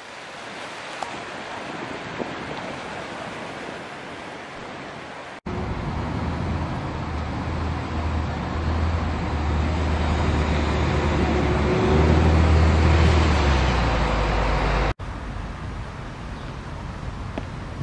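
Outdoor ambience: wind buffeting the microphone with a low rumble and a steady wash of road traffic. The sound cuts off abruptly twice, and the middle stretch is louder and more rumbling.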